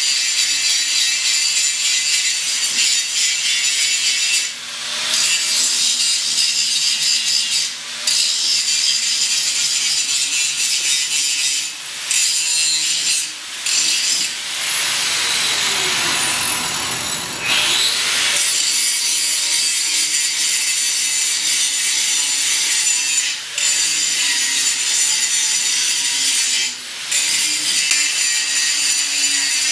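Angle grinder cutting through the steel front end of a truck, a steady high-pitched grinding noise broken several times by brief dips in the cut.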